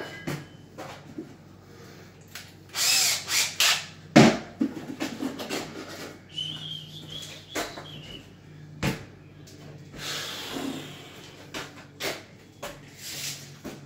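Wooden cabinets and tools being handled during an install: a series of knocks and scraping rubs, with a short high whine about halfway through.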